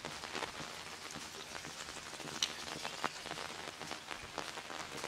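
Steady rain falling on a wet street, an even hiss with scattered ticks of single drops, one sharper tick about two and a half seconds in.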